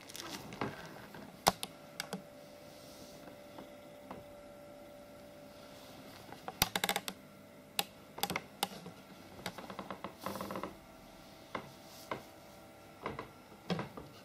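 Irregular light clicks and short patches of rustling, loudest in clusters about a third, two-thirds and near the end of the stretch, over a faint steady hum.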